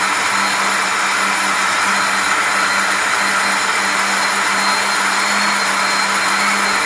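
Cold spark machine running, its fans and blower giving a steady whooshing whir over a constant low hum.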